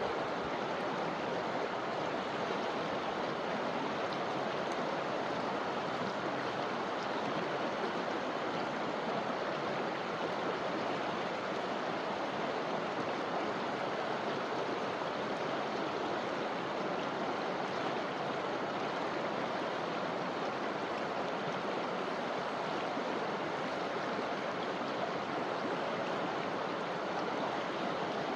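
Forest river flowing over stones: a steady, even rush of water.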